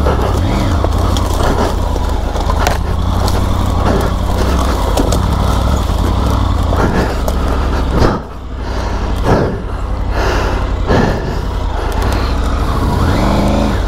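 Triumph Tiger 900 GT Pro motorcycle's three-cylinder engine labouring at low revs as it struggles up a rough bush track, with scattered clicks and knocks from sticks and brush. The engine note dips briefly about eight seconds in, then picks up again.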